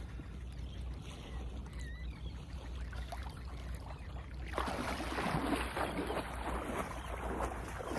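Wind and water noise against the microphone, growing suddenly louder about halfway through, over a steady low hum.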